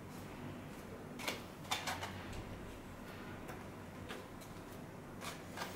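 Scattered light clicks and ticks, about seven spread over a few seconds, from wiring connectors and cables being handled behind a car stereo head unit while it is connected to 12-volt power.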